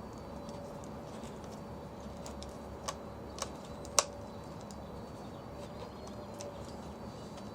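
Light clicks and taps of a small screwdriver on the doorbell's security screw and plastic housing, with three sharper clicks around three to four seconds in, the last the loudest. A faint steady hum runs underneath.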